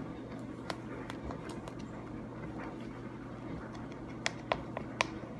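Sticky slime being stirred in a bowl, giving scattered small clicks and snaps, with a few sharper ones near the end, over a steady low hum.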